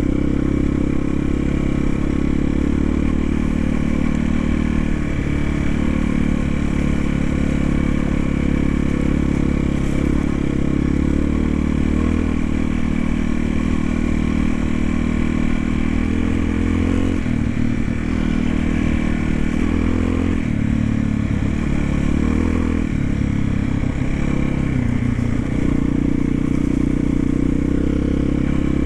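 1991 Yamaha XT350's single-cylinder four-stroke engine running while the bike is ridden, steady for the first half and then rising and falling in pitch with the throttle several times in the second half.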